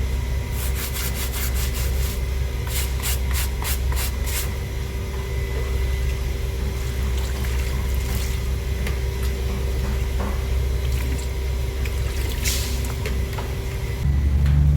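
Brush scrubbing a child's shoe with soap: a quick run of short scraping strokes in the first few seconds, then scattered strokes, over a steady low machine hum.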